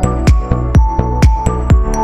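Background music with a steady drum beat, about two beats a second, over held chords.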